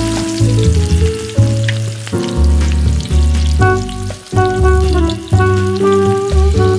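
Background music with a bass line and held notes, over sliced onions sizzling as they sauté on low heat in a pot.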